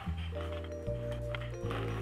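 Background music: steady low bass notes that change about every three-quarters of a second under held higher notes.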